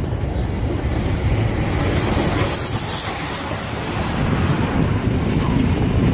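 DR class 52.80 steam locomotive 52 8060-7 passing close by: a steady rumble of its wheels and running gear under a loud hiss of steam, the hiss strongest about halfway through.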